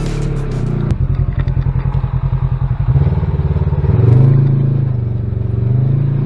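Side-by-side UTV engine running as it drives a dirt trail, heard from inside the open cab. The engine note pulses quickly at first, revs up about three to four seconds in, then settles to a steadier note.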